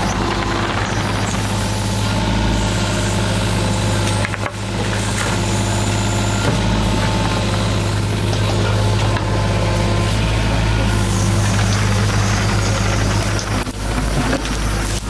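An engine running steadily at a constant speed, with two brief dips in level, about four and a half seconds in and near the end.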